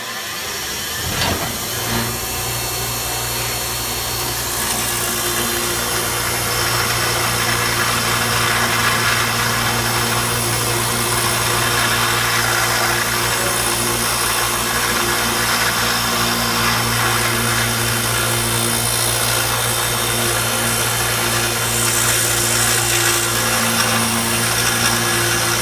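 Bench grinder motor running with a steady hum while a piece of metal is held against the grinding wheel, a grinding hiss that comes in about five seconds in and carries on.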